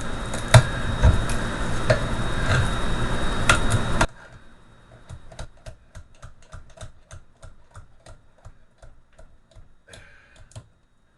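Screwdriver working at the copper bars of a starter motor armature: metal scraping with a few sharp knocks, then, after the sound drops away abruptly about four seconds in, a run of light, quick metallic ticks, several a second.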